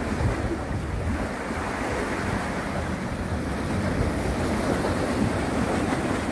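Sea waves washing against the concrete tetrapods of a breakwater, a steady rushing surf, with wind rumbling on the microphone.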